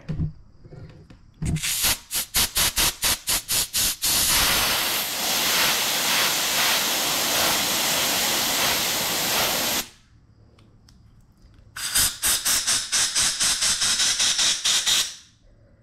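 Compressed-air blow gun blasting air through a small-engine carburetor to clean out its passages. A run of rapid short puffs, about five a second, gives way to one long steady hiss of about six seconds. After a pause comes another run of quick puffs.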